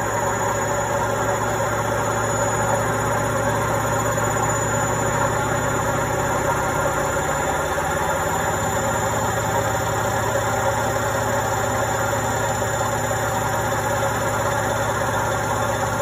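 Indesit front-loading washing machine running, a steady mechanical hum and whir from its motor and turning drum.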